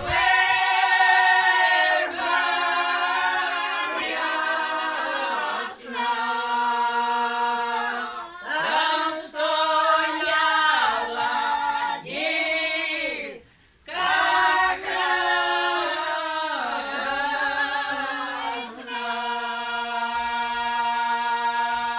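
A small group of elderly village women singing a folk song a cappella in harmony: long held notes with vibrato, phrases ending in falling glides, with short breaks between phrases and one longer pause about halfway through.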